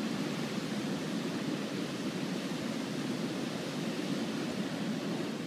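Floodwater of the swollen Otava river pouring over a weir: a steady rushing noise with no break.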